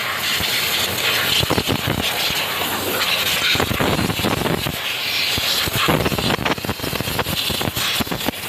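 Compressed-air blow gun hissing in uneven blasts as air is blown through an engine-bay fuse and relay box to clear out moisture and corrosion.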